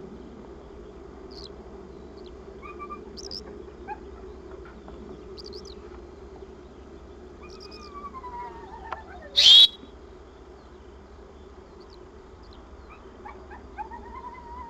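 Scattered faint high bird chirps over a steady low hum, with a dog's whine falling in pitch that runs straight into one short, very loud blast about nine and a half seconds in. Another rising-and-falling whine comes near the end.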